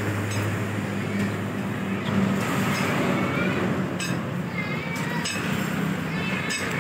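Steady low hum of an idling diesel truck engine, with a few sharp metal clinks about four, five and six and a half seconds in.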